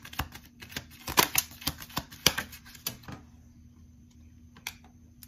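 A deck of tarot cards shuffled by hand: a quick run of sharp card clicks and slaps for about three seconds, then a single tap near the end.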